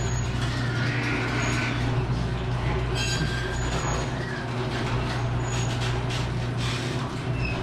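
Electric garage door opener running as it lifts the garage door open: a steady motor hum with the rumble and occasional clicks of the door travelling up its tracks.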